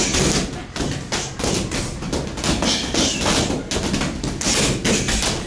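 Irregular thuds and taps of boxing sparring: padded gloves hitting gloves and bodies, mixed with quick footwork on the ring floor.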